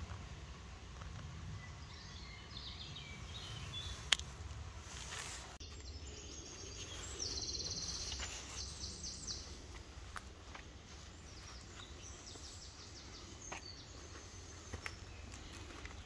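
Woodland ambience with a small songbird singing a fast, rattling trill about halfway through, and fainter song phrases later. Under it runs a low rumble of wind, with a few soft isolated clicks.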